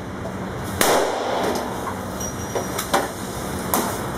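Irregularly spaced gunshots on a shooting range, about four in all, the loudest about a second in, over a steady low hum.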